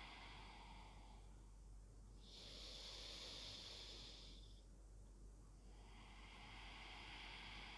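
Faint, slow breathing through the nose: long breaths of about two seconds each, with short pauses between them.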